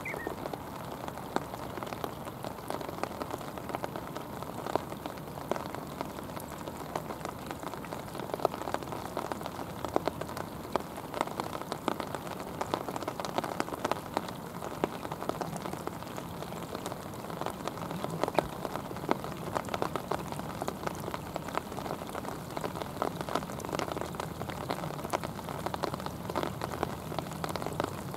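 Steady rain falling, a dense patter of drops with individual close drops ticking now and then.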